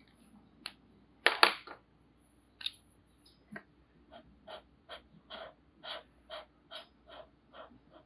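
A felt-tip marker scrubbing back and forth on paper as an area is coloured in, in short even strokes about two to three a second that start a couple of seconds in. A pair of sharp clicks about a second and a half in is the loudest sound.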